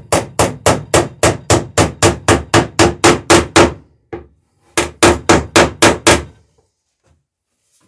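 Hammer peening copper rivets in a wooden boat's planking: a fast run of about sixteen sharp strikes, roughly five a second, then after a short pause a second run of about seven.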